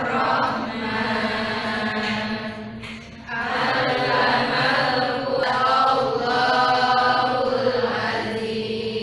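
Slow, chant-like singing in two long, held phrases, with a short break about three seconds in.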